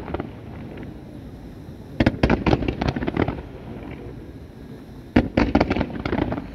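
Fireworks going off: a quick volley of sharp cracks and bangs about two seconds in, then another about five seconds in.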